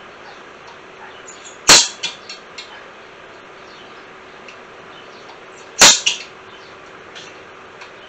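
Two sharp metal-on-metal strikes of a punch against steel plate, about four seconds apart, each followed by a few lighter clicks: hole positions being marked for drilling. An electric fan runs steadily underneath.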